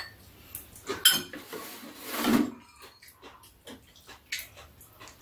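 Metal chopsticks and a spoon clinking and scraping against bowls on a metal serving tray in scattered light taps, with a sharp clink about a second in and a brief louder noise a little after two seconds.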